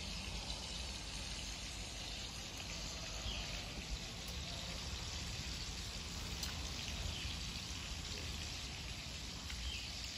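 Steady outdoor background noise with a few faint, short high chirps.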